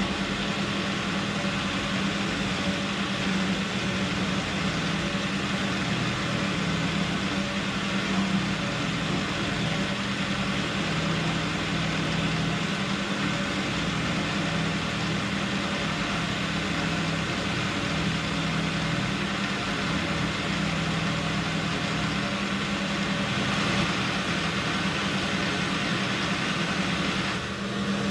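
AL960B metal lathe running steadily with a steady low hum, drilling a 9/16-inch hole through a 4140 steel bar.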